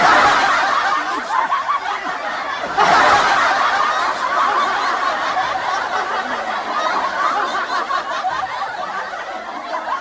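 Canned laughter: a crowd laughing and snickering without a break, getting louder about three seconds in.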